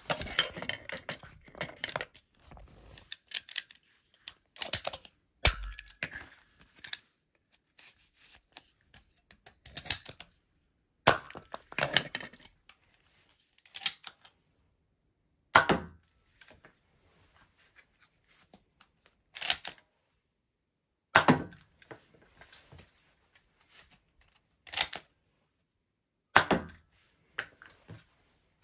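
Toy foam-dart pistol being handled, loaded and fired over and over. There is rustling handling noise at first, then sharp clicks and snaps every few seconds from cocking the gun and firing shots, with quiet gaps between them.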